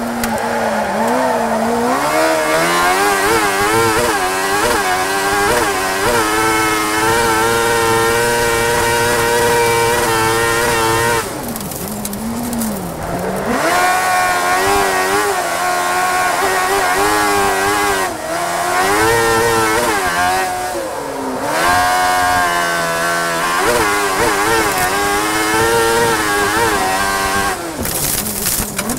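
Speedcar Xtreme race car's high-revving engine heard from inside the cockpit, pulling hard and revving up and down through the gears. There are lifts off the throttle about a third of the way in, around two thirds of the way in and near the end.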